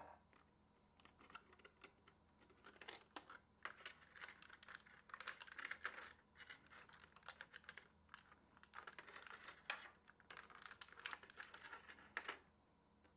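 Rigid clear plastic packaging tray clicking and crackling as small plastic display boxes are pried out of it by hand: faint, quick runs of small clicks and crinkles, with one sharp click near the end.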